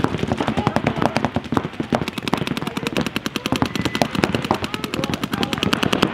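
Several paintball markers firing rapid strings of shots at once, the pops overlapping into a dense, continuous clatter.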